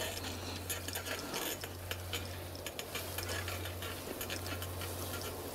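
Handheld camera handling noise: faint rustling and scattered light clicks over a low steady hum.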